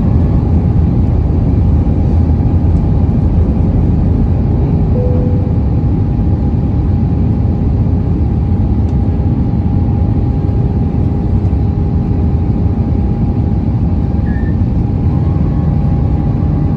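Airbus A320 cabin noise in flight, heard from inside the cabin: a steady roar of the engines and rushing air with a faint constant whine through it.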